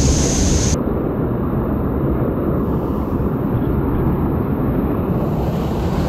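Loud, steady rushing water of river rapids close to the microphone, with a deep rumble of wind or water buffeting the mic.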